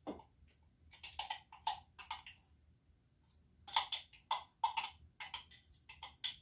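Zucchini being worked by hand at the kitchen counter: a run of quick, sharp strokes and taps. One short cluster comes about a second in, and a longer run from the middle almost to the end.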